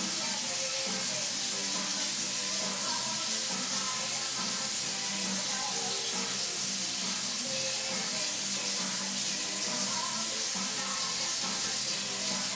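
Music playing from a mini hi-fi system, under a steady hiss.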